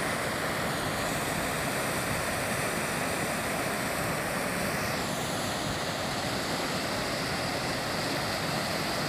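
Waterfall pouring down a rocky cleft into a pool, a steady rushing of falling water.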